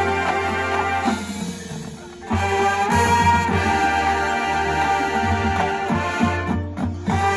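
Marching band playing: brass sustain long chords over low held notes and fade back a little, then come in loudly again with sharp percussion hits about two seconds in, swelling once more near the end.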